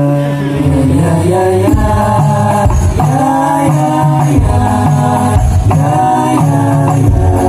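Hadroh ensemble: male voices singing a sholawat melody in long, bending notes, with deep frame-drum (rebana) strokes coming in about a second in and beating roughly once a second.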